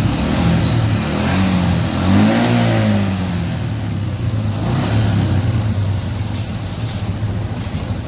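Yamaha Jupiter MX motorcycle engine running, its throttle opened briefly about two seconds in so the revs rise and fall back to idle, to test the battery charging output.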